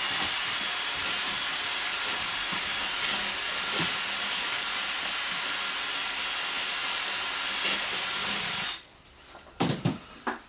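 Handheld power tool running steadily under load on the old drain's fittings, a loud even hissing noise, switched off suddenly about nine seconds in. A few short knocks follow.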